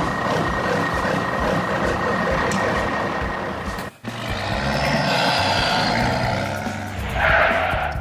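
Motor-vehicle engine sound effect running steadily. It breaks off abruptly about four seconds in, and a different engine sound takes over.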